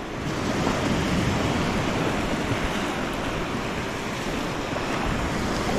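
Sea surf washing up a sandy beach: a steady rushing noise of small waves breaking at the shoreline.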